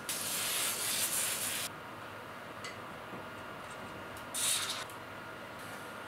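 Aerosol lubricant spray can hissing in a long burst of about a second and a half, then a second, shorter burst about four seconds in.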